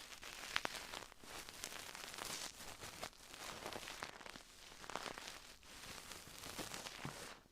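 Close-miked crackling and rustling, a dense stream of small clicks and crackles that stops near the end.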